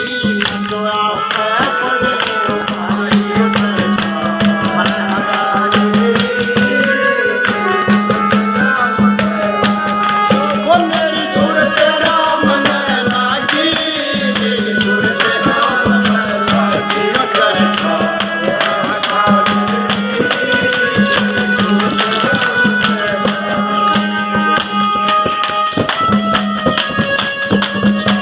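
Instrumental passage of an Indian folk devotional song: a melody of held and gliding notes over a steady pulsing drone, with fast, dense percussion throughout.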